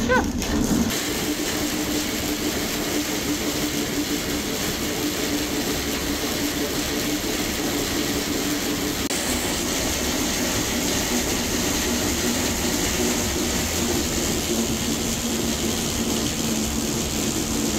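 Dog treadmill running steadily under a trotting dog: a continuous running noise with a low, steady hum. A husky gives a short rising whine right at the start.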